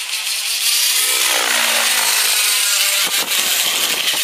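Align T-Rex 700 radio-controlled helicopter in fast flight, its rotor noise growing louder over the first second. A pitched tone falls a little after a second in, and there is a short click near three seconds.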